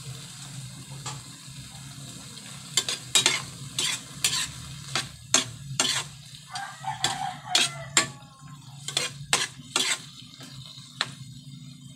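A metal spatula scraping and knocking against a metal pan while pieces of fish steak are stirred in their sauce. The strokes come in an irregular run from about three seconds in, over a light sizzle and a steady low hum.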